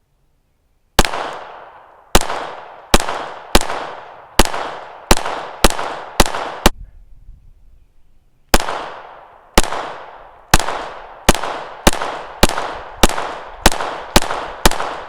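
Taurus TX22 .22 LR pistol firing CCI Mini Mag rounds: nine shots about a second apart or less, a pause of about two seconds, then ten more shots coming faster, each shot sharp with a short echoing tail.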